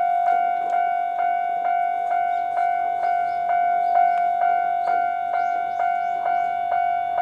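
Japanese railway level-crossing alarm ringing at its normal sound: an electronic bell striking evenly a little over twice a second over a steady ringing tone.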